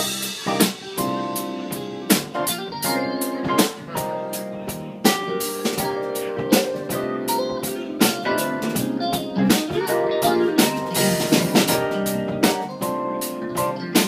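Live rock band playing with a steady beat: drum kit, electric guitar, electric bass and keyboard, with drum hits about four a second over held chords.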